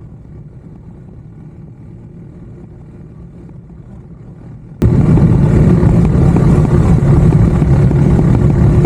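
Motorcycle engine running under way with heavy wind noise. The sound is quiet at first, then cuts in suddenly and loud about five seconds in.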